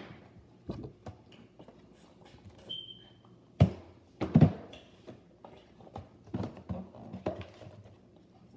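Handling noise from firework packages being moved: scattered light knocks and rustles, a short high squeak, then two louder thumps a little past the middle.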